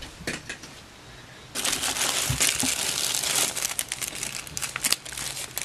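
Plastic zip-lock bag crinkling and rustling as hands pull it open, starting about a second and a half in after a few light clicks.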